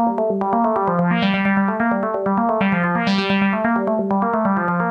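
Background music: quick, evenly repeated electric-piano-like keyboard notes over steady low held notes.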